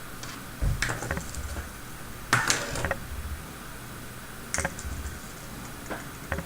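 Small plastic parts of a Robotis OLLO construction kit being handled and pushed together with plastic rivets: sharp clicks and snaps in about five separate clusters, the loudest about two and a half seconds in.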